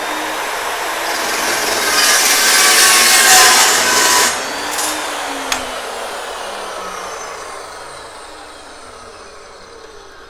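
Fein Slugger 14-inch TCT dry-cut chop saw running and cutting through a steel tube with its carbide-tipped blade, loudest and harshest about two to four seconds in. The cut ends after about four seconds, and the blade then winds down with a slowly falling whine.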